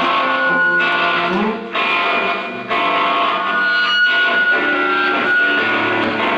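Live band music led by electric guitars, playing held chords and notes through effects, with the chord changing about once a second.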